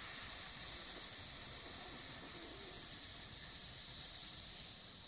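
A long, slow exhale through the teeth as a sustained high 'sss' hiss, like a snake, gradually fading near the end: a controlled out-breath in a belly-breathing exercise.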